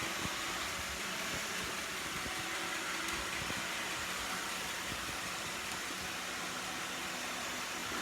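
iRobot Roomba 690 robotic vacuum running: a steady hiss-like whir from its vacuum motor and brushes, with a few faint ticks.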